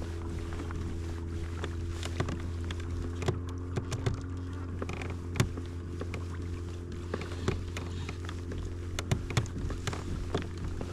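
A boat motor running steadily with an even hum, with scattered light clicks and taps over it.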